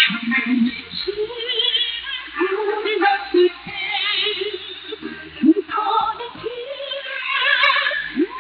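Female chorus singing with band accompaniment, received over shortwave radio, so the sound is narrow and thin with the treble cut off.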